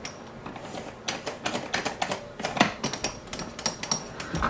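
Irregular run of small, sharp clicks and taps from handling the new casement window latch hardware and hand tools.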